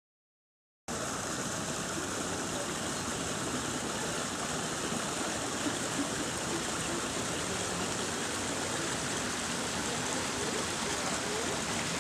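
A small stream of water running over rocks in a steady rush, cutting in suddenly about a second in.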